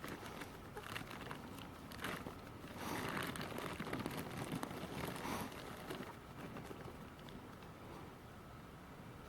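A bag of chicken treats rustling and crinkling as it is handled, busiest for a few seconds in the middle.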